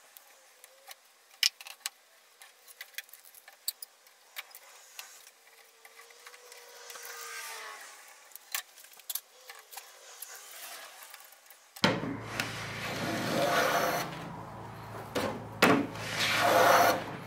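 Clamps being set on a wooden boat frame: scattered sharp clicks as spring clamps and quick-grip bar clamps are squeezed shut. About twelve seconds in, a louder stretch of rubbing and knocking begins as wooden stringers are handled.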